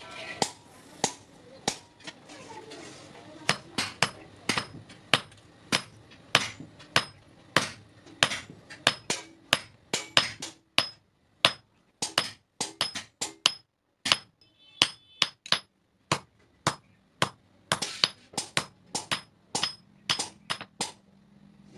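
Hand hammer striking metal on an anvil in a steady run of blows, about two to three a second, each with a short metallic ring. The hammering pauses briefly twice, about halfway through.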